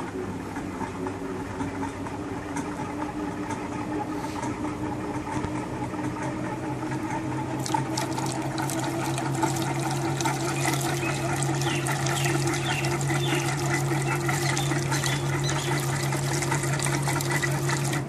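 12 V DC motor of a homemade bucket washing machine switched on with a click, then running with a steady hum as its pulsator churns the water into a whirlpool. The swishing and splashing of the water grows louder from about halfway through.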